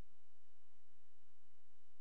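No real sound, only the recording's steady noise floor: a constant hiss with a low hum and faint, steady high-pitched tones, unchanging throughout.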